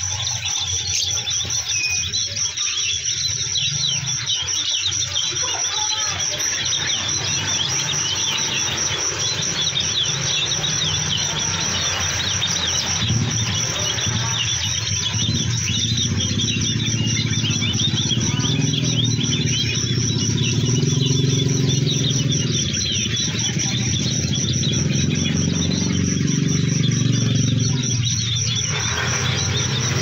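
Small caged songbird twittering softly in quick, scratchy notes (ngeririk), over a steady high-pitched pulsing trill. A low rumble joins about halfway through and stops shortly before the end.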